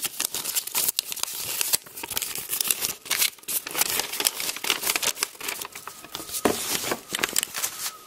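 Paper leaflets and plastic packaging crinkling and rustling as they are handled and a leaflet is unfolded, a continuous run of small crackles.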